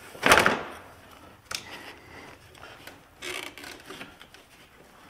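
An alternator being worked by hand out through a tight gap in a GMC Acadia's engine bay: metal knocking and scraping against the surrounding parts, with one loud knock just after the start and then a string of smaller knocks and rubs.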